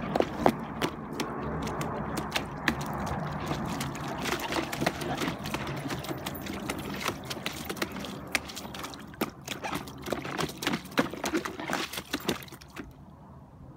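A Leonberger puppy splashing water with its paws in a shallow plastic paddling pool, in irregular quick splashes. The splashing stops near the end.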